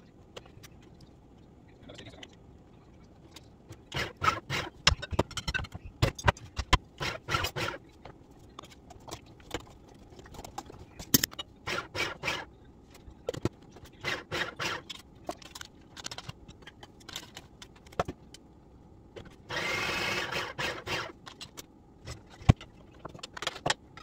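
Food processor chopping a jackfruit and hearts-of-palm mixture in short pulses, mixed with clicks and knocks of handling, then running steadily for about a second and a half near the end.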